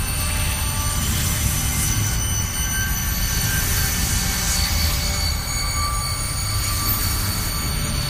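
Low, shimmering tension ambience: a steady low rumble under a shimmer of many thin, held high tones, with slow faint swells in the highs.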